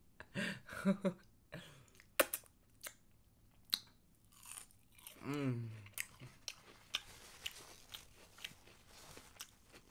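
Crunchy bites into a battered fried shrimp and steady chewing, with sharp crisp cracks in the first few seconds and softer regular crunching about twice a second later on. A short voice sound about five seconds in.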